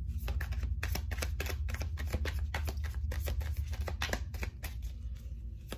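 Tarot deck being shuffled by hand: a quick, irregular run of card clicks and flicks, over a low steady hum.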